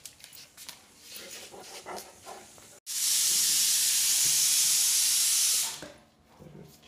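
Loud, steady hiss that cuts in abruptly after a brief dropout about three seconds in, holds for nearly three seconds and then fades away. Before it, only faint light clicks.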